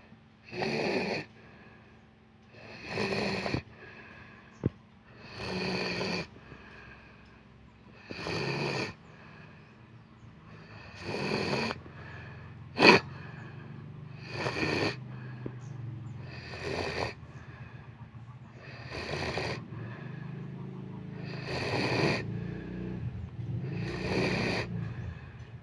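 Someone asleep, snoring in slow even breaths, one snore about every two and a half seconds. About halfway through a single sharp click stands out as the loudest sound.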